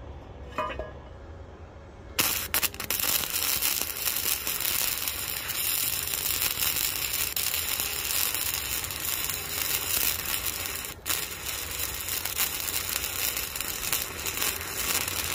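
Flux-core wire-feed welding arc crackling and sputtering steadily as it runs a bead on a steel frame, starting about two seconds in. The arc breaks off briefly around eleven seconds, then strikes again.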